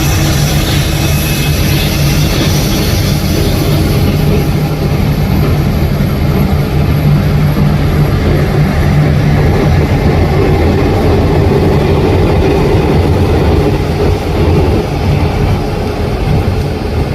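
Jet airliner engines running close by, a loud steady roar with a low hum. A high whine is heard early on and fades over the first several seconds.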